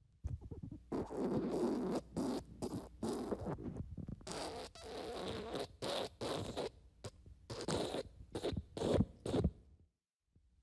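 Wet fart sound effect: a run of sputtering, wet farts. A long drawn-out stretch comes in the first few seconds, followed by a string of shorter blasts, and it stops shortly before the end.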